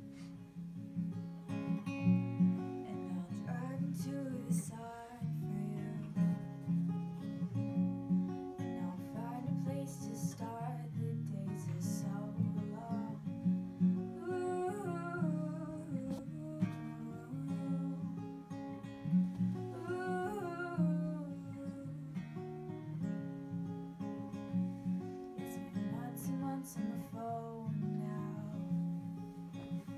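Acoustic guitar strumming chords, with a voice singing a melody over it from about two seconds in.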